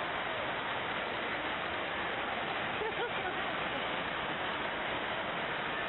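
FlowRider wave simulator's pumped sheet of water rushing steadily up the slope.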